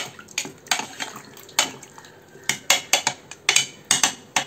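Wooden spoon knocking and scraping against a metal pressure cooker pot while mutton pieces in water are stirred: about a dozen irregular sharp clacks, coming quicker in the second half.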